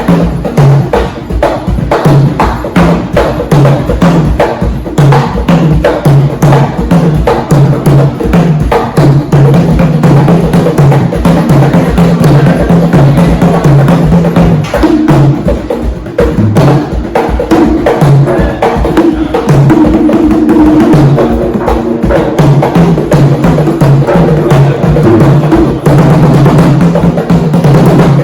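Hand drums played together in a fast, dense rhythm, with low drum tones alternating between two pitches under sharp strikes.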